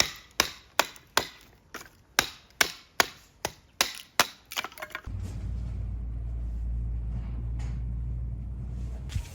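A quick run of sharp strikes on wood, about two to three a second, like chopping or hammering. About five seconds in they stop and a steady low rumble takes over.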